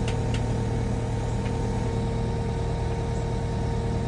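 Skid steer engine running steadily, a constant low hum with a steady higher whine over it, and a few light clicks in the first second and a half.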